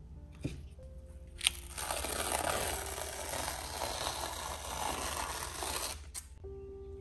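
Masking tape peeled off a canvas edge. A sharp click about a second and a half in is followed by a long crackling, tearing pull of about four seconds.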